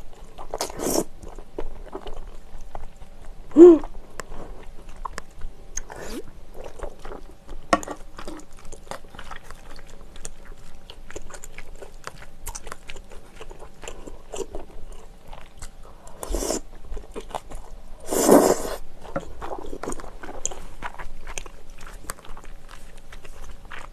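Close-miked eating sounds: chewing glass noodles and clams in rosé sauce, with many small wet mouth clicks. A short hummed "mm" about four seconds in, and two louder slurps around 16 and 18 seconds in.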